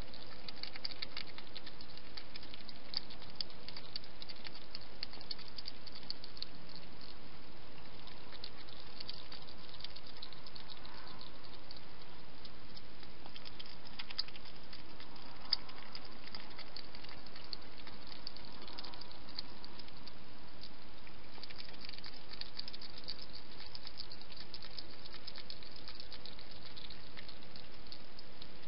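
A wild hedgehog eating from a dish: quick, fine crunchy clicks come in bouts over a steady background hiss.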